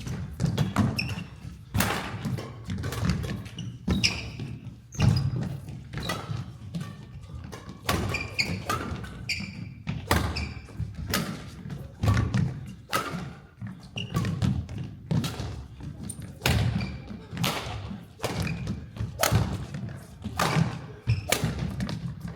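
Badminton rally: repeated sharp racket hits on the shuttlecock, players' shoes thudding on a hard indoor court floor, and short high shoe squeaks, coming irregularly about one to two times a second.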